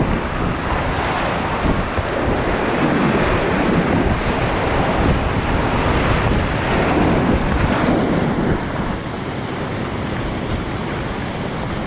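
Loud rushing and splashing of river whitewater close around a kayak as it runs through a rapid, strongest in the middle of the run and easing a little after about eight seconds as the boat comes out into calmer flow.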